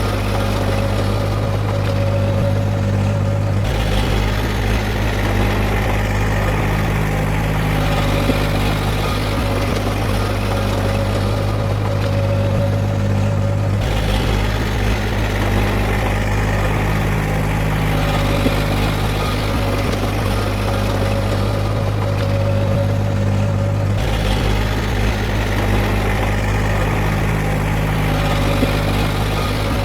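Heavy diesel engine of earthmoving machinery running steadily with a strong low hum, its tone shifting about every ten seconds.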